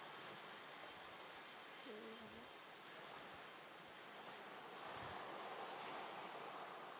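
Insects trilling steadily in the trees: one thin, high-pitched, unbroken note over a soft, even background hiss. A brief faint voice is heard about two seconds in.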